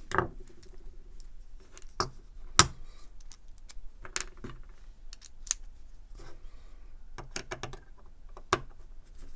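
Small metal clicks and taps as a pocket knife is taken apart, with screws, driver and knife parts handled and set down. The clicks come at irregular intervals, with one sharp click about two and a half seconds in.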